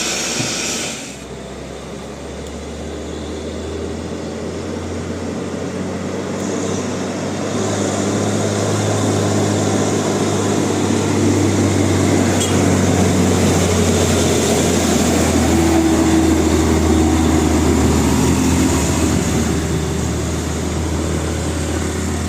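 A horn cuts off about a second in. After that a heavy road vehicle's engine runs steadily under road noise, growing louder over about ten seconds and then holding.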